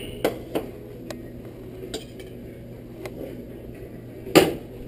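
A metal spoon clinks a few times against a metal pressure-cooker pot as garlic is stirred in oil. Near the end the pot gives one loud knock as it is moved on the stove by its handles.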